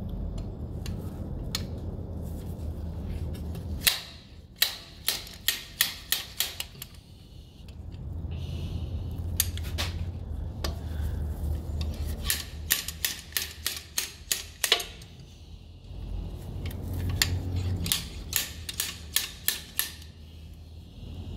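Runs of sharp metal-on-metal taps, about three a second: a hammer striking a small seal puller hooked into a transmission axle seal to drive the seal out. The taps come in three bursts separated by pauses.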